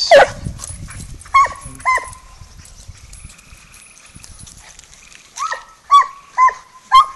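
Walker coonhound barking at a live raccoon: a loud falling call at the start and two short barks, a pause, then a quick run of barks about twice a second near the end.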